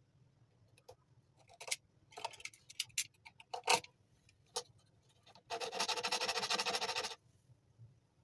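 A snap-off utility knife clicking several times, then one steady rasping scrape about a second and a half long, its blade working on the glued popsicle sticks.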